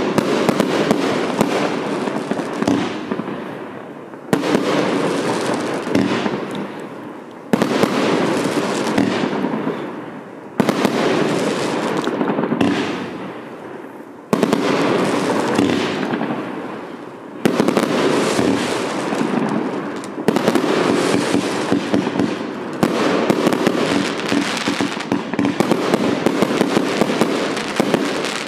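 A 126-shot fireworks cake firing: dense, rapid volleys of shots launching from its tubes and bursting overhead. The firing comes in waves, each starting sharply every three or four seconds and dying down before the next.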